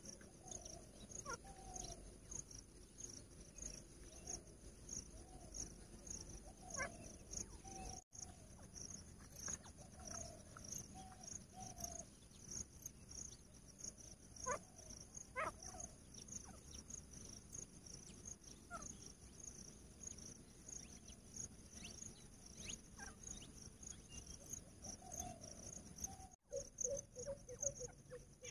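Soft, low clucking notes in short runs from caged grey francolins, over a steady pulsing chorus of chirping insects, with a few brief sharp chirps now and then. A short run of quick notes comes near the end.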